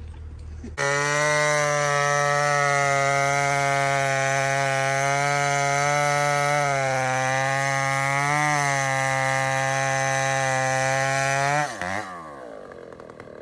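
Big 90cc-class chainsaw with a 36-inch bar running at full throttle as it cuts through a large hardwood round, its engine pitch dipping slightly under load. About twelve seconds in the throttle is let off and the engine note falls away quickly.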